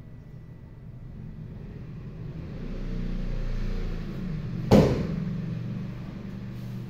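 One sharp snap about four and a half seconds in from a taekwondo poomsae technique, over a low rumble that swells and then eases off.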